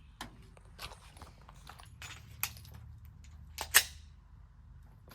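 A series of short, sharp clicks and cracks at irregular spacing, the loudest one about three-quarters of the way through.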